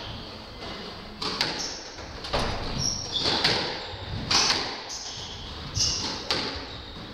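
Squash rally: sharp cracks of the ball being struck by rackets and hitting the court walls, about one every second, ringing briefly in the enclosed court.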